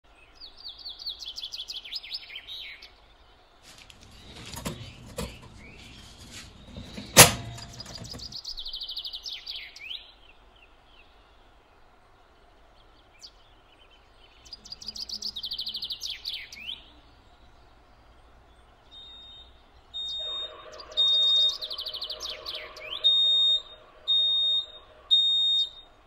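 Songbirds chirping in short falling phrases that come back every few seconds, with one sharp click about a quarter of the way in. From about three-quarters of the way in a smoke alarm sounds, beeping in repeated loud high-pitched pulses about once a second.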